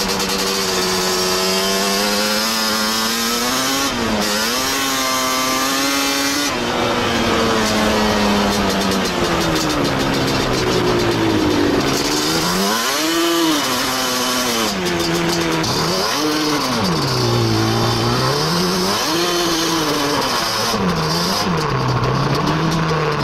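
Yamaha Banshee's twin-cylinder two-stroke engine under way, running fairly steady at first, then revving up and down again and again in the second half as the quad rides a rough trail.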